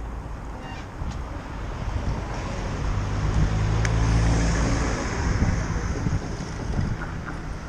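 Street traffic with wind on the microphone; a motor vehicle passes close by, its engine and tyre noise swelling to a peak about four seconds in and then fading.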